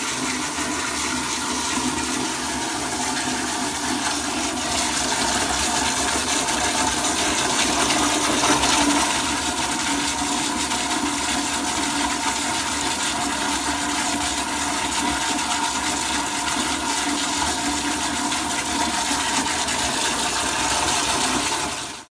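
Toilet flushing, the water rushing loudly and steadily as the bowl empties and the tank refills, then cutting off suddenly at the end.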